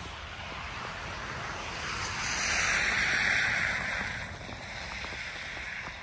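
A vehicle passing on a snow-wet road: a rushing tyre hiss that swells to a peak about three seconds in and fades away again over the next second and a half.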